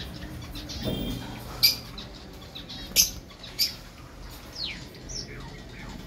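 Lovebirds chirping: three short, sharp, high chirps, loudest about one and a half, three and three and a half seconds in, followed by a couple of softer falling calls.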